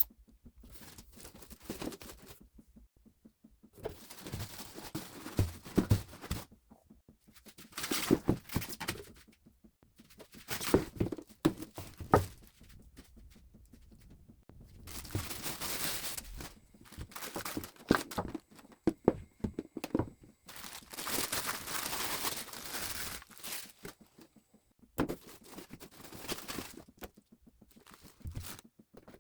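Blender packaging being unpacked by hand: plastic wrap and paper crinkling and tearing in repeated bursts, with sharp knocks as cardboard and parts are handled.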